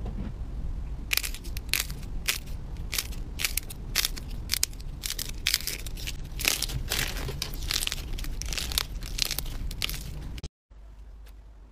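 Hands squeezing and mashing soft, glossy-coated slime balls, giving a dense run of irregular crisp crackles and crunches. The crackling stops abruptly about ten seconds in.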